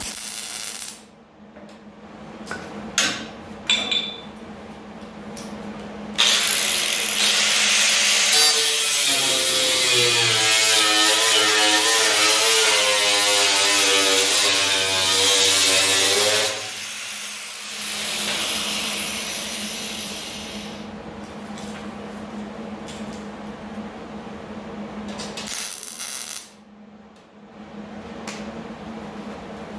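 Angle grinder with a cut-off wheel cutting into sheet-steel rocker panel, starting about six seconds in and running for about ten seconds, its whine shifting in pitch as the wheel bites, then winding down. A few sharp clicks come before it, and a softer steady noise follows, over a low hum.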